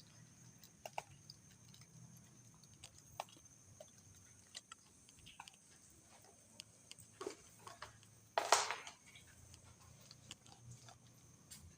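Faint scattered clicks and taps, with one louder short scrape or rustle about eight and a half seconds in.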